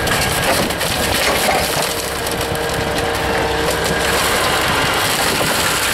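Peugeot 106 car body being crushed and folded by an excavator bucket: sheet metal and glass crunching and crackling in many small cracks. The excavator's air-cooled Deutz three-cylinder diesel runs underneath.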